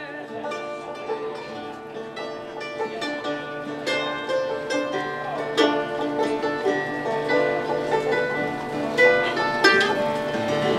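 Music played on plucked string instruments, a tune of picked notes.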